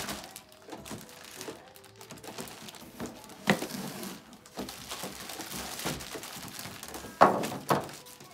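Plastic packaging bags crinkling and rustling as hoses and parts are handled and pulled out of a cardboard box, with the box and parts knocking now and then. There are louder bursts of rustling about three and a half seconds in and again near the end, where it is loudest.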